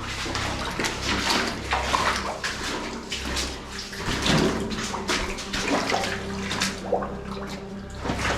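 Rubber rain boots wading through shallow water, with irregular sloshing and splashing from each step.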